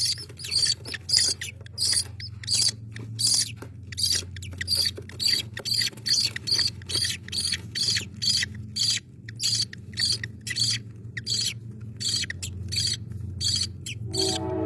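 Rainbow lorikeet chick giving short, high-pitched cheeps, repeating about twice a second over a steady low hum.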